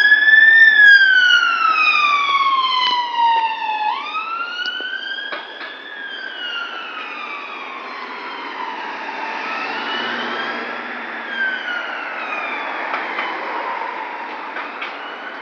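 Ambulance siren on a slow wail, rising and falling in pitch about every four seconds, loudest at the start and growing fainter.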